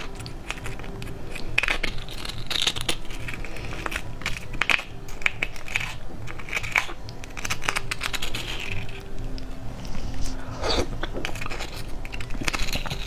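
A plastic spoon scraping and clicking against the inside of a spiny sea urchin shell as the roe is scooped out: a run of quick, scratchy clicks and scrapes.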